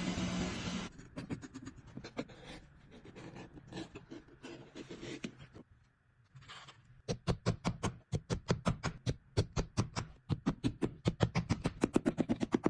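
A motor running stops about a second in. Scattered light clicks follow, then from about seven seconds a fast, even run of sharp taps, about five a second.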